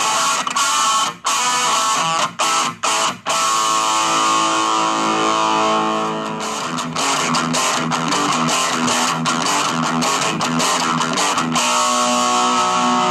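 Bacchus BST-2 RSM electric guitar played through a Cowboy AW15G guitar amplifier: chords cut off sharply four times in the first few seconds, then longer held chords and notes ring out.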